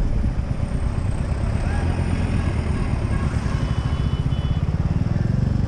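Royal Enfield single-cylinder motorcycle engine running at road speed under the rider, with its steady low thumping exhaust beat, getting a little louder near the end. A short high beep sounds briefly in the middle.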